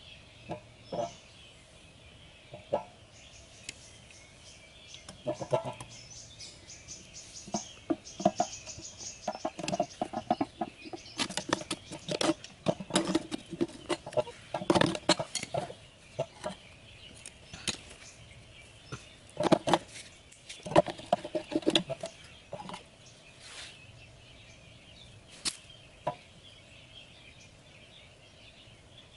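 Scattered clicks, taps and scrapes of hands working with a knife, nylon string and a metal tin, thickest in the middle, over a steady high hiss.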